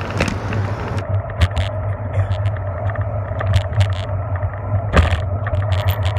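Bicycle riding on a paved road: a steady low rumble of tyres and rattling, with frequent sharp clicks, and car traffic passing close alongside. A high wind hiss on the microphone stops about a second in.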